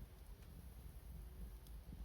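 Quiet wood fire with a couple of faint crackles, about half a second in and near the end, over a low rumble.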